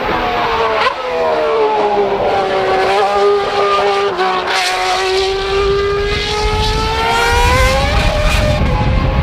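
Formula 1 car's high-revving V8 engine. Its note falls over the first couple of seconds, holds steady, then climbs again from about six seconds in, with a deeper rumble building near the end.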